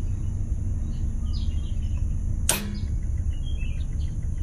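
Steady low rumble with birds chirping, and one sharp click about two and a half seconds in as an air brake solenoid valve on the truck's rear axle is triggered in a test.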